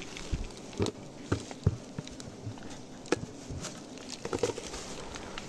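Honeybees buzzing faintly, with scattered knocks and rustles of handling among dry leaf litter, which are the loudest sounds.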